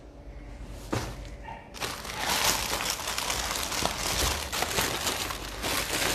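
Crinkling and rustling as a packaged dress is handled: a single click about a second in, then dense crinkling from about two seconds in.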